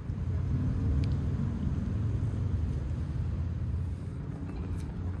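A steady low rumble of outdoor ambience, heaviest in the bass.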